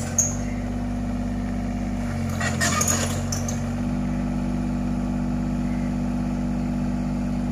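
Hitachi ZX33U mini excavator's diesel engine running steadily as the arm and bucket work, with a brief clatter of rubble and concrete debris about two to three and a half seconds in.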